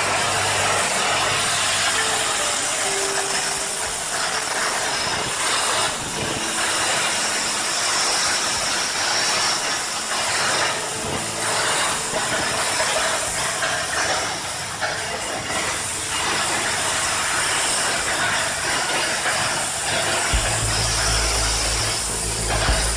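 Automatic expansion bolt assembly machine running: a steady, dense metallic rattle of parts being shaken along its vibratory bowl feeders. A low hum comes in near the end.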